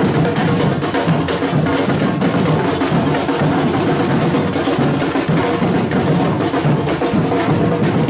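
Samba drum line playing: many large aluminium drums beaten with sticks together in a fast, steady rhythm, loud and continuous.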